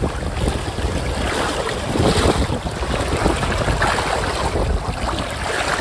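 Wind buffeting the microphone over shallow surf washing in and out, with water sloshing around hands holding a kob in the wash to revive it before release.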